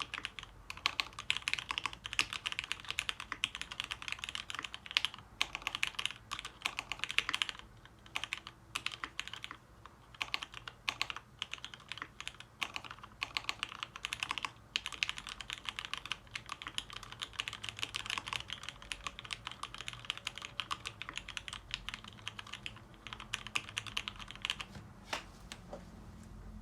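Typing on a Dolphin v2 mechanical keyboard with lubed Cherry vintage black linear switches on 60 g springs and a polycarbonate plate: rapid keystrokes with a few brief pauses, thinning out near the end.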